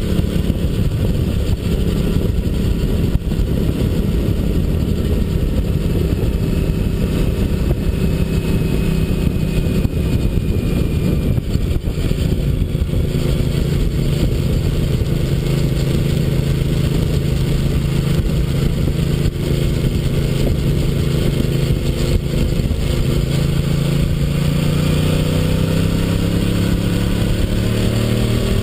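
Honda SP1 (RC51) 1000 cc V-twin engine running under way at fairly steady revs, its pitch stepping once about halfway through. Over the last five seconds it climbs steadily as the bike accelerates.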